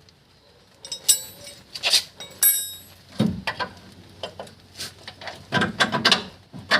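Metal hand tools clinking and knocking against each other and against steel parts, a series of sharp clanks, some ringing briefly, starting about a second in.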